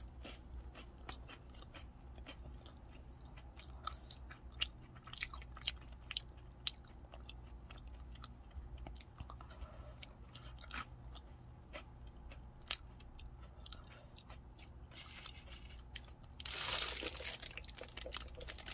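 Close-up chewing of a soft, chewy Subway white chocolate macadamia cookie, with many small sharp mouth clicks. Near the end a burst of wrapper rustling.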